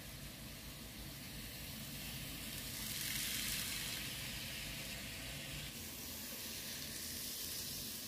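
N-scale model train running over plastic-based model track, a steady whirring rush that swells as the train passes close, loudest about three seconds in, then eases off.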